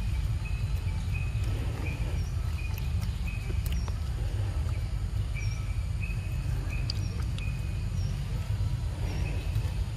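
A long-tailed macaque chewing ripe mango close to the microphone, over a steady low rumble. Short high chirps repeat now and then in the background.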